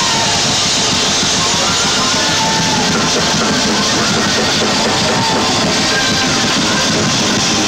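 Live band playing: a drum kit with cymbals driving the beat under a guitar.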